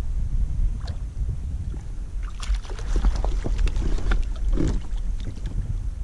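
Hooked white bass splashing at the water's surface beside a kayak, a cluster of sharp splashes from about two to five seconds in, over a steady low rumble of wind on the microphone.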